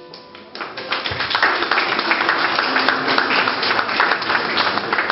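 A piano's last notes fade out, then a small audience starts applauding about half a second in and keeps clapping steadily.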